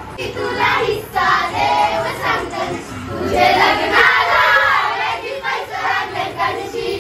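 A group of women singing and shouting together, many voices at once, loudest around the middle.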